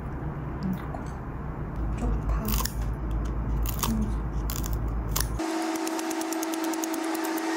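Pollock roe (myeongran) sizzling in sesame oil in a frying pan, a steady hiss with scattered pops. About five seconds in it gives way abruptly to a steady hum with a fast, even ticking.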